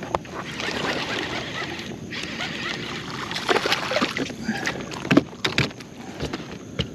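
Water splashing and sloshing around a fishing kayak, with a run of sharp knocks and clicks, the loudest about five seconds in.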